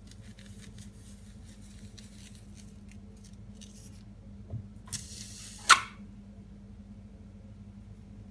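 A heated kitchen knife cutting through a banana, with faint crackling as the blade works through the peel. About halfway through there is a short burst of hissing that ends in one sharp, loud snap.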